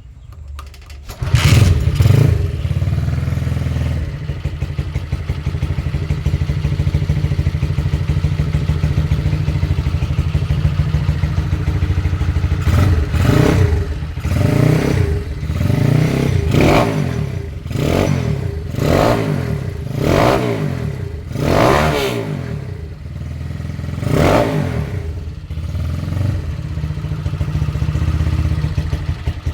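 Honda CB motorcycle engine through an aftermarket 'kleper bedel' exhaust, with a loud rev about a second in, then idling steadily. In the middle the throttle is blipped about nine times in quick succession, each rev rising and falling, before it settles back to idle.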